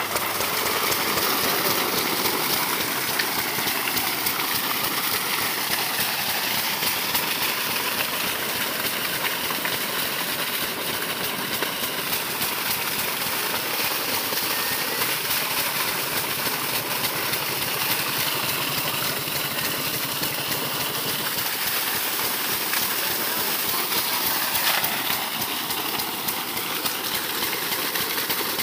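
A 12 hp single-cylinder diesel pump engine running steadily, belt-driving a centrifugal irrigation pump, with a heavy stream of water gushing and splashing from the pump's outlet pipe onto the ground.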